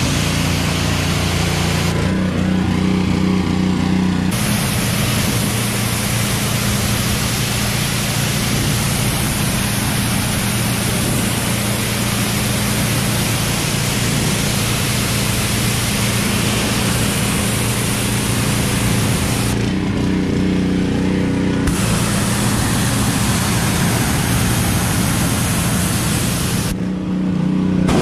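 Pressure washer running steadily, its motor humming under the hiss of the high-pressure jet blasting dirt off a pickup truck's side panels and wheel well. The spray hiss cuts out briefly three times, about two seconds in, in the middle and near the end, while the motor keeps running.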